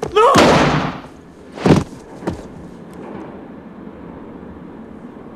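Two loud handgun shots: the first right at the start rings out for most of a second, the second is a sharper crack a little under two seconds in. A fainter knock follows, then a low steady room hum.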